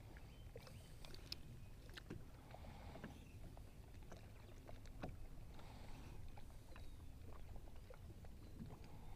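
Quiet on-the-water ambience from a small boat: a low steady rumble, faint water lapping at the hull, and a scattered few small ticks.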